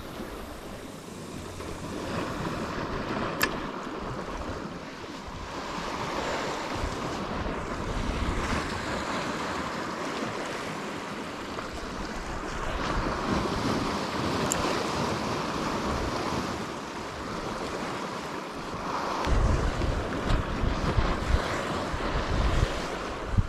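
Sea waves washing and surging against a rocky shoreline, swelling and easing every few seconds, with a single sharp click about three seconds in. Wind blows over the microphone and becomes gusty and rumbling near the end.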